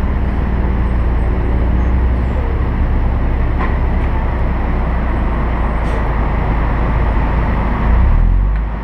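Vehicle engine idling with a steady low rumble while the vehicle rolls slowly forward, swelling briefly louder near the end.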